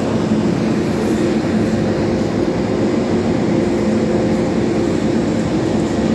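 Electric passenger train at a station platform, running with a steady hum and several steady tones that hold level.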